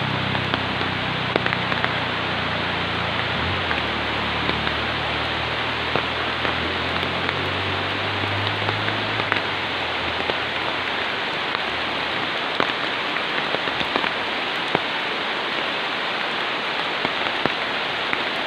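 Heavy rain falling steadily on forest foliage and a concrete road, with scattered sharp taps of drops. A low hum underneath fades out about halfway through.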